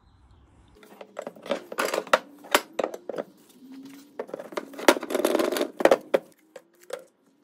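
Steel parts handled on a wooden workbench: a series of clanks and knocks as a steel rod and painted steel mounting plates are moved, with a longer scraping stretch about five seconds in. It quiets down about six seconds in.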